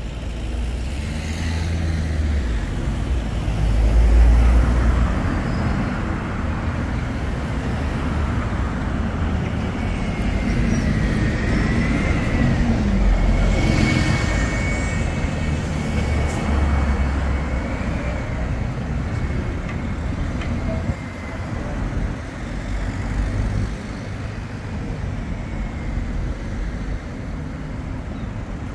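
Town-centre street traffic with a double-decker bus passing close by, its engine loudest about midway through, over a steady rumble of road traffic.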